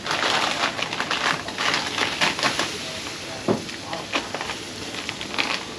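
A metal utensil stirring shrimp into a steaming seafood boil: irregular clinks and scrapes against the cooker, with one sharper knock about three and a half seconds in.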